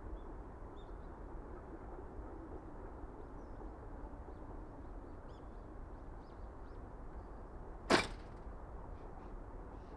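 Outdoor ambience with a steady low wind-like rumble and small birds chirping faintly now and then. About eight seconds in, a single sharp click cuts through.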